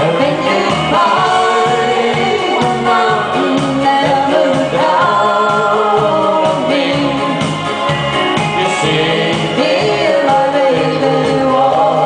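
A woman and a man singing a duet into microphones over an amplified accompaniment with a steady bass beat, about two beats a second.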